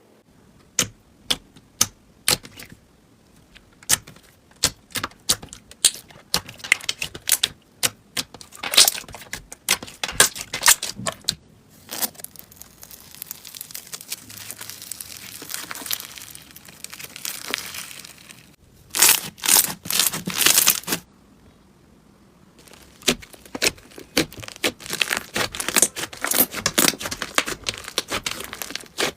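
Slime being squeezed and worked, making a run of sharp clicks and pops, then a softer crackling hiss about halfway through, a dense burst of crackling a little later, and quick clicking again near the end.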